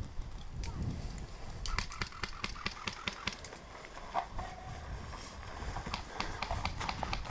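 Footsteps crunching on dry, gravelly ground: a run of short, irregular crunches, with a low wind rumble on the microphone underneath.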